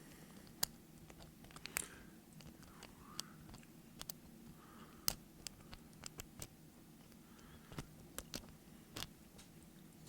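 A dozen or so small, irregular clicks and ticks of a lock pick and tension wrench working the pins inside a doorknob's pin-tumbler lock, over a faint steady low hum.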